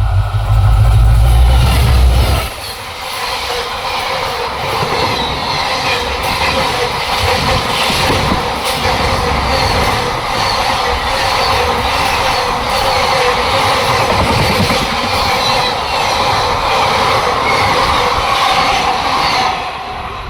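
Indian Railways train passing at speed. A deep rumble fills the first two seconds or so, then the carriages rush past with a rapid clickety-clack of wheels over the rail joints, and the sound drops away near the end.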